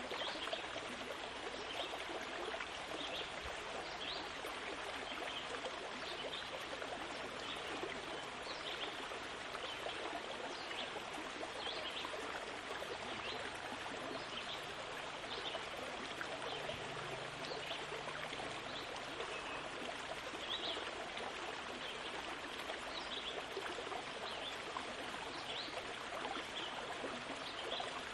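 Steady, even rushing noise with faint scattered flecks, like running water, throughout.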